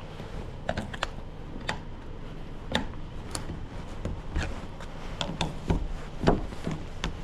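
Scattered sharp clicks and taps, one to a few a second, from tools being worked at a drilled deadbolt, with a louder knock or two near the end.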